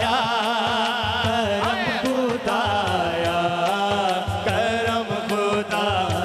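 Devotional hamd performed qawwali-style: a drawn-out, wavering sung line without clear words over sustained harmonium notes, with a steady beat on dholak drums.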